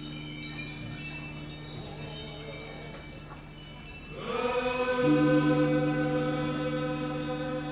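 Male Naga warrior dancers chanting together in a steady held drone. About four seconds in, a louder sustained call rises over it and is held for a few seconds.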